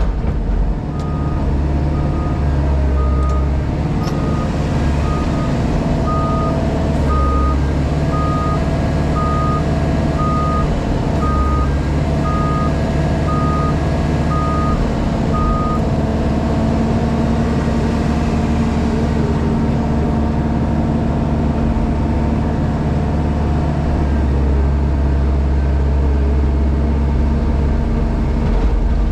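JCB Pothole Pro's diesel engine running steadily, heard from inside the cab, with a reversing alarm beeping about once a second through the first half before it stops.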